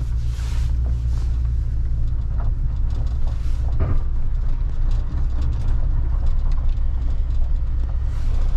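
Pickup truck driving, heard from inside the cab: a steady low engine and road drone, with a brief knock about four seconds in.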